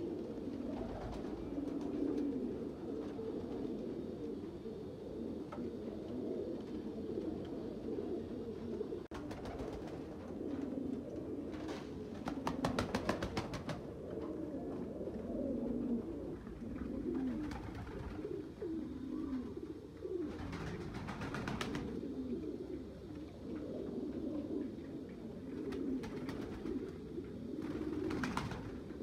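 Several fancy pigeons cooing continuously, with a few brief bursts of rapid clatter.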